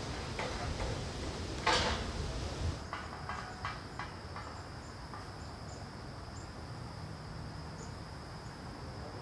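A few distant metal knocks as the steel frame is handled: a sharp one about two seconds in, then a quick cluster of lighter knocks. Underneath runs a steady rumble of wind on the microphone.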